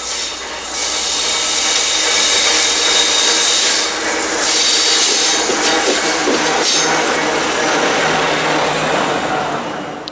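Two SNCF Fret BB 69400-class diesel locomotives coupled in multiple passing close by: loud engine and wheel-on-rail noise with a steady high whine, building as they arrive and easing near the end.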